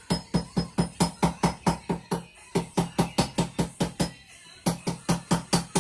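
Hand hammer striking a hot railroad spike on an anvil in quick, even blows about five a second, with two short pauses, knocking the sharp edges off the spike.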